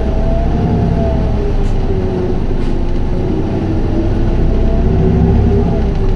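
Isuzu Erga city bus driving under way, heard from on board, with the automatic transmission held in 4th gear in power mode: a steady low engine and drivetrain drone with wavering whine tones that drift slowly up and down in pitch.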